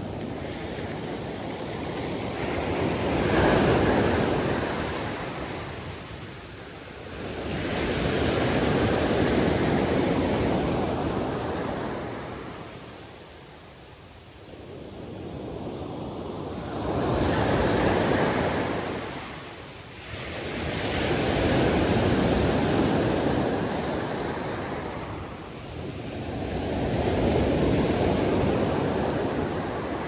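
Sea waves washing in, the sound swelling and fading in slow surges a few seconds apart.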